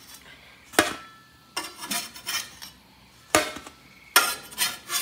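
Metal spatula scraping under pigs in a blanket on a baking stone and clinking against a metal pizza pan as they are lifted across. Sharp ringing clinks come about a second in and again about three and a half seconds in, with scraping between them and a quick run of scrapes and clinks near the end.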